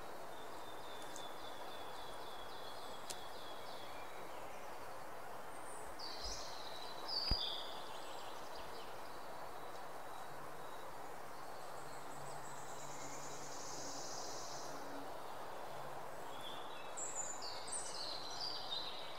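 Quiet steady background ambience with small birds chirping now and then, a few short high trills, and a single sharp knock about seven seconds in.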